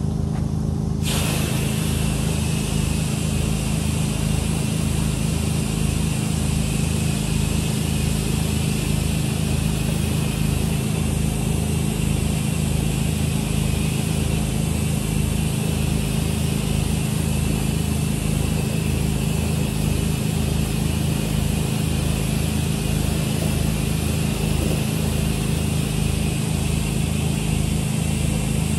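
A pressure washer's engine and pump run with a steady low hum, and about a second in the X-Jet nozzle on the wand opens up with a loud steady hiss of high-pressure water spray, rinsing the building's siding.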